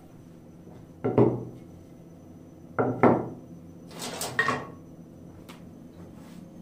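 Wooden boards knocked down onto a wooden workbench: one hollow knock about a second in and two more close together near three seconds. A lighter, brighter clatter follows as a thin wooden dowel is handled on the bench.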